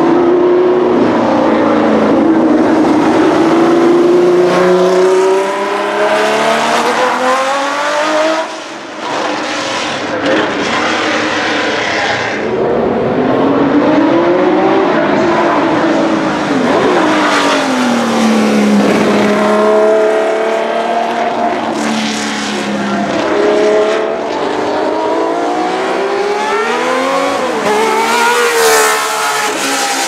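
1972 Tecno PA123/3 Formula 1 car's 3-litre Pederzani flat-twelve engine at high revs on track. The pitch climbs and drops again and again as it accelerates and lifts through the corners, with a brief sharp lift just before nine seconds.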